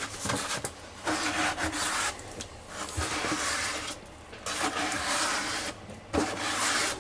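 Wet self-levelling concrete being scraped out of a bucket by a gloved hand and slopped onto the floor: about four rasping scrapes, each about a second long, with a few light knocks of the bucket between them.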